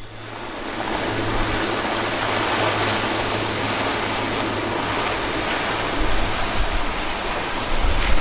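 Airbus A400M's four Europrop TP400 turboprop engines at takeoff power during the takeoff roll: a loud, steady rushing noise with a low hum underneath. Wind buffets the microphone from about six seconds in.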